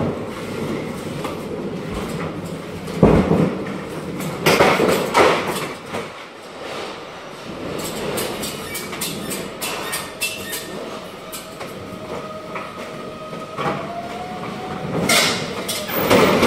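Pallet jack wheels rolling and rattling over a steel dock leveler plate and trailer floor under stacks of plastic crates. Loud clanks come about three seconds in, again around five seconds, and near the end.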